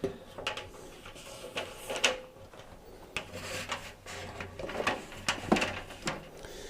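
Scattered light clicks, knocks and scrapes of parts being handled inside an opened tumble dryer as a new rubber drive belt is fitted around the drum.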